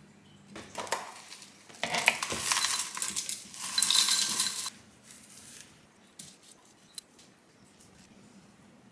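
Dry granola poured from a storage container into a ceramic bowl, rattling loudly for about three seconds, with a light ringing clink against the bowl. Earlier come brief scrapes of a spoon, and later a few faint clicks as a knife slices a banana over the bowl.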